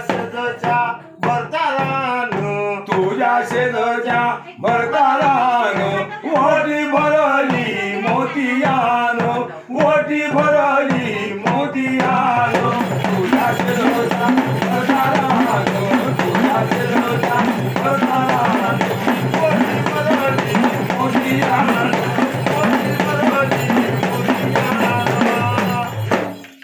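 Indian folk music with drums, in an instrumental stretch between verses. For about the first half a wavering melody line plays over the beat, then dense, fast drumming with accompaniment takes over.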